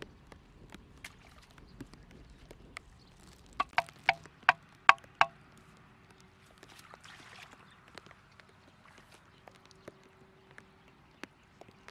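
Six sharp, ringing knocks in about a second and a half, near the middle: a wooden stake being hammered into the mud to hold up a net trap. Fainter clicks and rustles come before and after.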